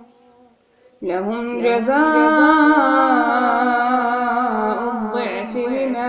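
Woman chanting a Quran recitation in melodic tajweed style: after a short pause, the voice comes in about a second in and holds long drawn-out vowels with a gently wavering pitch.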